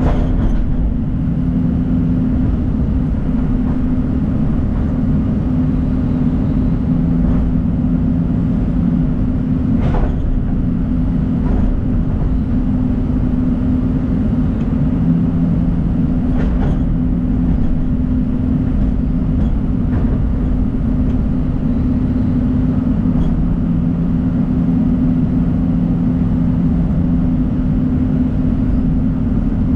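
John Deere 250G excavator's diesel engine running steadily with a deep hum, with a few short sharp clanks.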